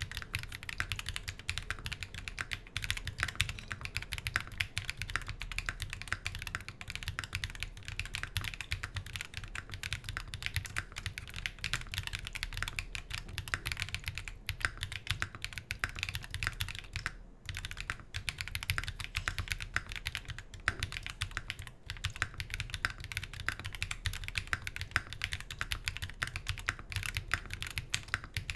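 Steady, continuous typing on an Ark68 R2 custom mechanical keyboard, gasket-mounted with an aluminium plate, JWK 02 switches and Key Kobo Darling keycaps. The typing breaks off briefly about seventeen seconds in.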